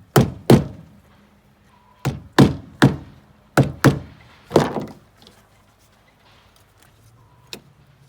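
A series of heavy chopping thunks, eight strokes in uneven groups over about five seconds, then one lighter knock near the end.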